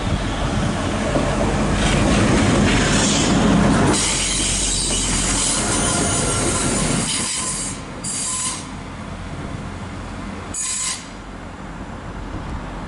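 Transport for Wales Class 175 diesel multiple unit running past close by as it comes into the station, its wheels squealing high-pitched, loudest a few seconds in. Two short squeals come again near the end.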